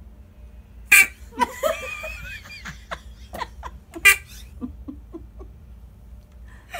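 A toy Fartzooka fires two short, sharp blasts about three seconds apart, the loudest sounds here. People laugh between and after them.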